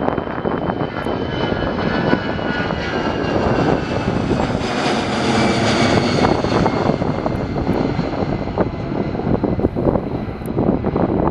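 Airplane engines passing close overhead, their whine sliding down in pitch as the aircraft goes by, loudest about halfway through, with wind buffeting the microphone.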